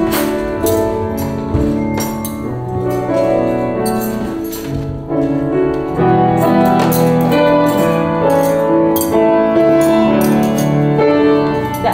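A grand piano being played: a melody over held chords, getting somewhat fuller and louder about six seconds in.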